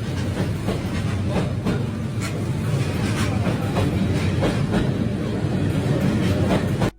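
Train rolling past: a loud, steady rumble with repeated clacks of the wheels over the rail joints, cutting off suddenly near the end.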